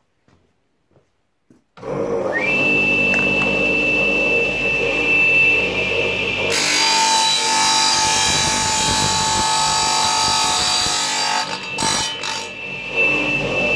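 Wet tile saw's motor switches on about two seconds in, its whine rising quickly to a steady high pitch. About six and a half seconds in the diamond blade bites into a plastic remote control with a loud grinding hiss that stops about eleven seconds in, leaving the blade running free.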